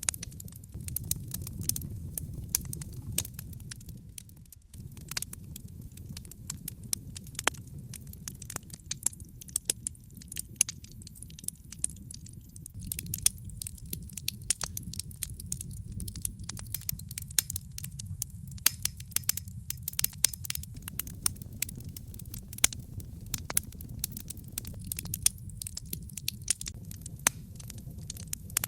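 Wood fire burning in a fireplace: a steady low rumble of the flames with frequent sharp, irregular crackles and pops from the burning logs.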